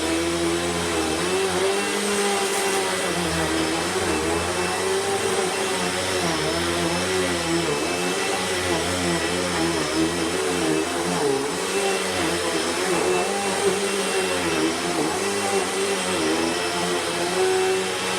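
Royal Pro Series Quick Rewind vacuum cleaner running steadily, its motor hum wavering slightly up and down in pitch.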